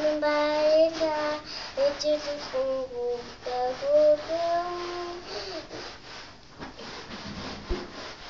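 A young girl singing alone in a high voice, holding long notes that slide from one pitch to the next, then stopping about five and a half seconds in.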